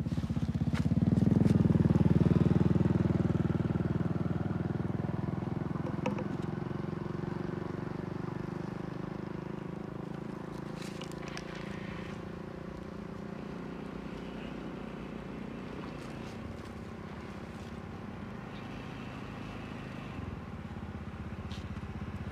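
A motor vehicle passing close by on the road, loudest about two seconds in and fading away over several seconds, leaving a low steady engine rumble.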